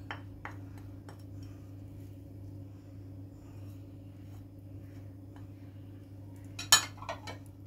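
Wooden spoon scraping and tapping chopped parsley off a ceramic plate into a bowl of mashed potatoes: faint soft scrapes and small taps over a steady low hum, with one sharper clink about seven seconds in.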